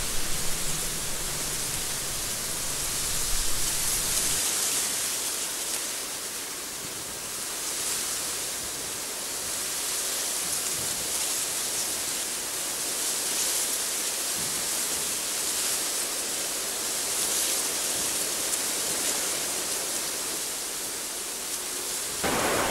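Recorded wind sound played as masking noise for tinnitus therapy: a steady rushing hiss with gentle swells. A deeper low layer drops out about four seconds in, leaving a higher hiss, and a waterfall recording joins right at the end.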